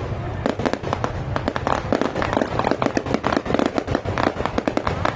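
Fireworks display: a dense, continuous barrage of sharp bangs and crackles, many bursts a second with no pause.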